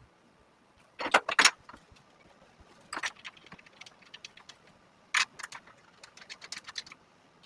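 Light clicking and clinking of small hard parts being handled, in short clusters: about a second in, again at three seconds, and a longer run of clicks from about five to seven seconds.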